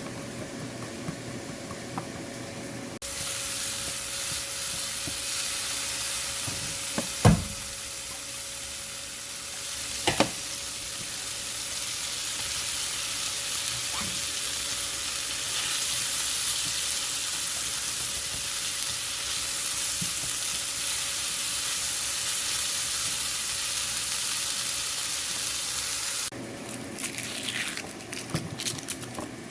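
A tofu stir-fry sizzling in a hot pan while it is stirred, starting suddenly about three seconds in and cutting off suddenly near the end. Two sharp knocks, of a utensil against the pan, come early in the sizzling.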